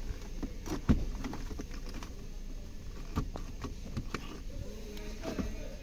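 Scattered light clicks and knocks of plastic interior trim as the gear-selector surround on a 2019 Toyota Corolla's centre console is worked loose by hand. The sharpest knock comes about a second in.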